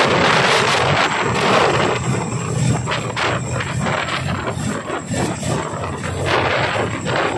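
Boeing CH-47 Chinook tandem-rotor helicopter lifting off, its twin turboshaft engines and two rotors running at take-off power. There is a loud rush of rotor downwash on the microphone, and a rhythmic beating of the blades comes through from about two seconds in.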